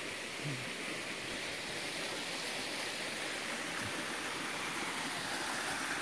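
Waterfall rushing in a steady, even hiss of falling water.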